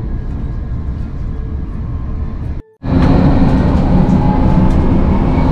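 Steady low rumble of a moving vehicle heard from inside. It cuts off briefly about two and a half seconds in and comes back louder, with a steady hum.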